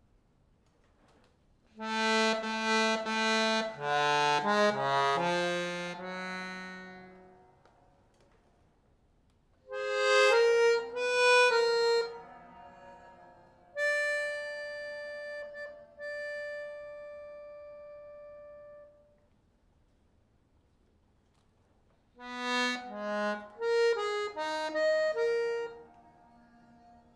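Diatonic button accordion playing three short phrases of quick notes with pauses between them; the middle phrase ends in a chord held for about five seconds.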